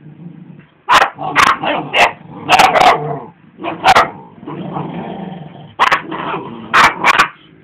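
Dog growling low and steadily, broken by repeated short, sharp barks: a mother dog warning her pups off her chew bar.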